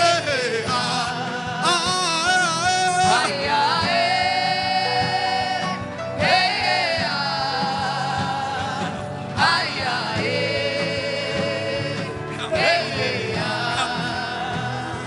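Gospel worship music: a singing voice holds long, wavering notes in phrases a few seconds long, with short breaks between them, over a steady accompaniment.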